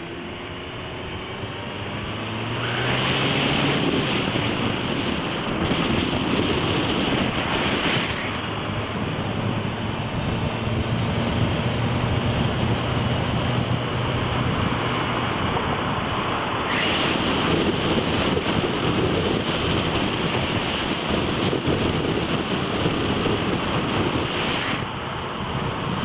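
Vehicle engine running while driving up a mountain road, heard under heavy wind rushing on the microphone. The engine pitch rises over the first few seconds, then holds steady.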